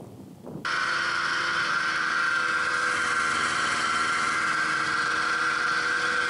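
Snowmobile engine running at a steady speed while riding, heard from the driver's seat as a steady drone with a strong high whine. It cuts in suddenly under a second in.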